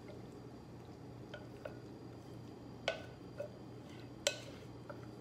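A thick milk, cheese and egg mixture poured from a glass bowl onto macaroni in a glass baking dish, with a wooden spoon scraping it out: soft drips and several light clicks of spoon on glass, two of them louder about three and four seconds in. A steady low hum sits underneath.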